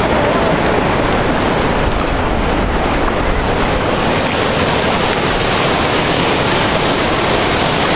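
A steady, loud rush of water, with wind buffeting the microphone.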